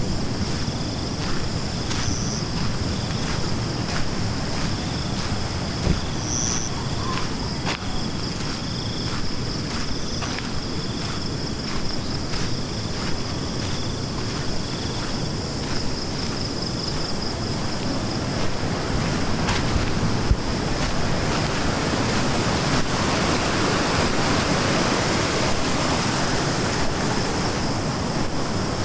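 Rushing water of a river swollen and running fast after heavy overnight rain, a steady roar that grows louder in the second half.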